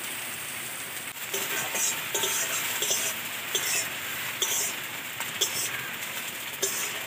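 Sliced onions sizzling in a little refined oil in an iron kadai, with a steel spatula scraping and stirring them in short, irregular strokes from about a second in.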